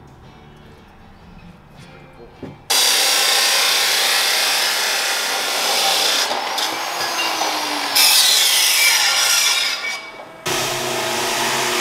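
Abrasive chop saw cutting through steel exhaust tubing, a loud grinding shriek that starts about three seconds in and stops near the end. A steadier hum with a few even tones follows.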